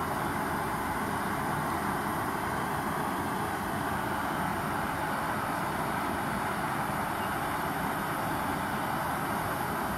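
MAPP-gas burner firing into a small melting furnace, a steady even rushing noise with no change, as the crucible of gold nuggets is brought to melting heat.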